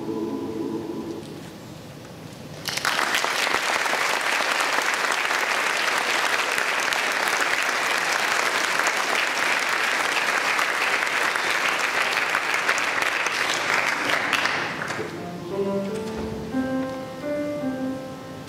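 A choir's held final chord fades out, then an audience breaks into applause about three seconds in and claps for about twelve seconds. As the clapping dies away, a piano plays a few single notes.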